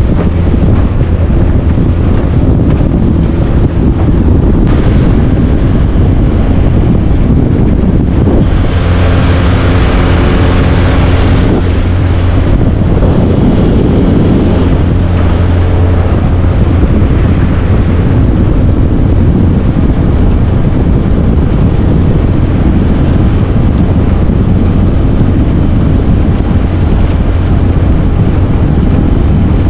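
Motorboat engine running steadily under way, with wind buffeting the microphone. A louder rush of wind and water about nine seconds in lasts a few seconds.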